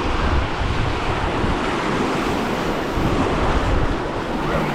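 Steady rushing of river water through riffles around a canoe, with wind buffeting the microphone in gusts underneath.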